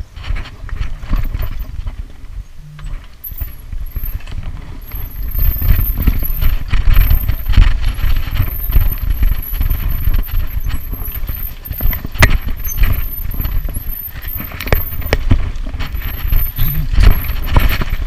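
Mountain bike clattering and rattling down a rough dirt trail, with sharp knocks as the wheels hit bumps over a steady low rumble of wind and ground noise on the camera's microphone; it grows louder about five seconds in as the bike picks up speed.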